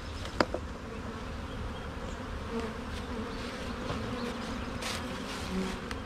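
Honeybees from an opened hive buzzing in a steady hum, with one sharp click about half a second in.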